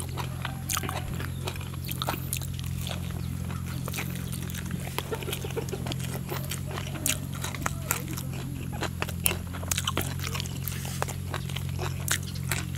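Close-up mouth sounds of a person eating sticky rice and fresh raw greens: wet chewing, lip smacks and small crunchy bites, over a steady low hum.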